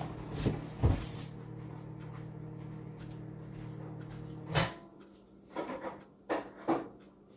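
A series of household knocks and thumps from things being handled and moved about. A steady electrical hum runs under them and cuts off with a loud knock about four and a half seconds in. A few more sharp knocks follow.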